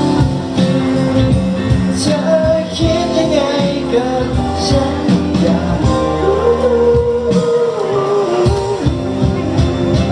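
A man singing a Thai pop song live into a microphone over backing music, holding long wavering notes in the second half.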